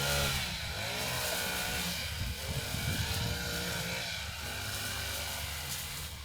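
Lawnmower engine running steadily, its pitch wavering up and down as the load changes.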